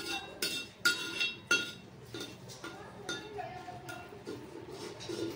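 Metal ladle clinking against a metal cooking pot while khichdi is stirred: about four sharp clinks in the first two seconds, then softer ones.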